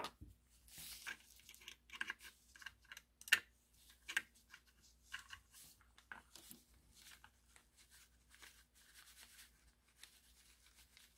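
Faint scratchy rubbing of a cotton bud scrubbing the inside of a small metal motor housing, with scattered small clicks and taps from handling the parts; the sharpest click comes about three seconds in.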